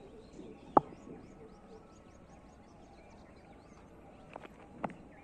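A single sharp knock about a second in, then two fainter knocks near the end, as a hard cricket ball is struck. Small birds chirp in quick repeated high notes in between.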